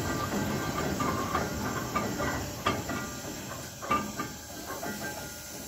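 Steam crane working: a steady hiss of steam with a few sharp metallic clanks in the middle, growing quieter toward the end.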